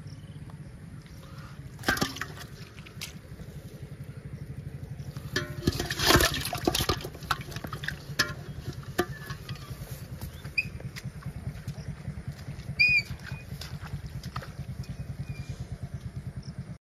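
Fish being handled and dropped into a plastic bowl: scattered knocks and rustles, loudest about six seconds in, over a steady low pulsing rumble.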